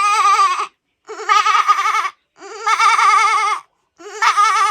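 Goat bleating over and over, each bleat about a second long with a quavering pitch, four in a row with short gaps between them.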